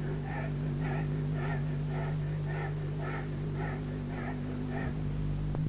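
Rhythmic panting, about two short breaths a second, over a steady low hum.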